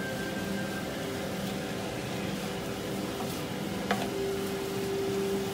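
Spiced mutton pieces being stirred in a non-stick frying pan, with a low sizzle and light scraping of the spoon, and one sharp clack against the pan about four seconds in. A steady hum runs underneath.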